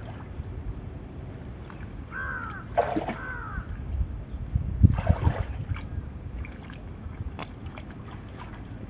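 Shallow muddy water sloshing and trickling as hands work in it, with a few louder splashes about five seconds in. A short high call rises and falls twice about two to three seconds in.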